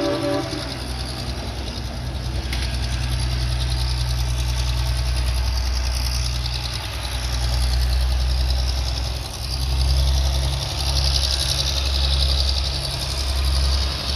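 Diesel locomotive engine running with a deep, steady rumble that swells and eases as the locomotive creeps forward, with a faint hiss above it. A chord of horn tones cuts off about half a second in.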